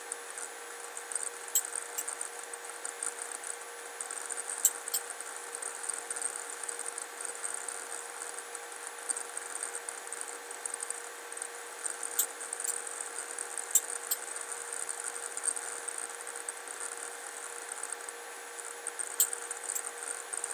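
Sharp, sparse clicks, often in pairs a fraction of a second apart, like a computer mouse button pressed and released while dragging a 3D view, over a steady faint hum and high hiss.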